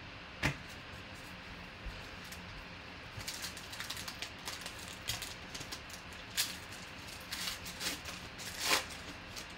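One sharp tap about half a second in, then the foil wrapper of a trading-card pack crinkling and tearing in short, irregular crackles as it is ripped and peeled open, loudest near the end.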